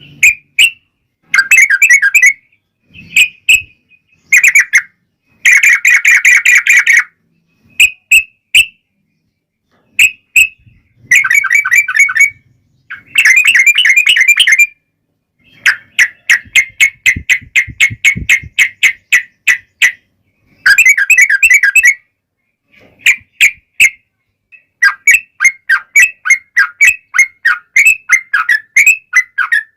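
Yellow-vented bulbuls (trucukan) singing in bursts of quick, bubbly chattering notes, broken by short pauses and including a long rapid run of repeated notes.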